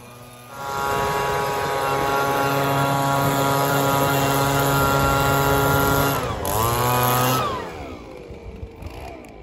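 Leaf blower revved up from idle about half a second in and held at full speed, blowing debris out of an engine bay. It dips and revs again about six seconds in, then drops back to idle near eight seconds, its pitch falling.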